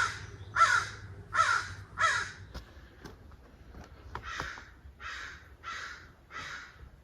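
A crow cawing repeatedly: four loud, harsh caws in the first couple of seconds, then four fainter caws from about four seconds in, each a little under a second apart.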